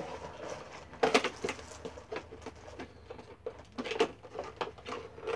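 Cardboard box and plastic packaging crackling and clicking as a boxed figurine is worked out of its box by hand, with the busiest runs of crackles about a second in and again about four seconds in.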